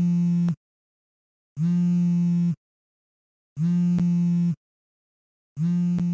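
Smartphone vibrating with an incoming call: a low buzz about a second long that repeats every two seconds.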